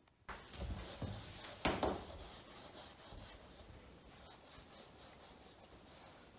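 Hands rubbing and handling an object at a kitchen counter, with one sharp knock about a second and a half in, then a fainter, steady rubbing.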